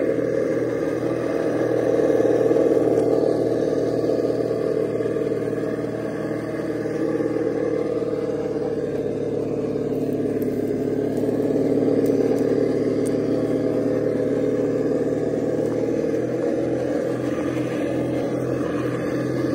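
Simulated engine sound from the RC crawler's onboard engine sound simulator (ESS-Dual+), running steadily as the truck crawls, with a low rhythmic throb near the end.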